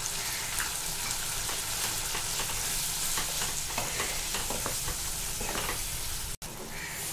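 Yam stalks and prawns in a wet masala sizzling in oil in a nonstick kadai, stirred with a wooden spatula, with short scrapes over the steady hiss, as the liquid cooks down. Near the end the sound cuts out for an instant, then the sizzling resumes a little quieter.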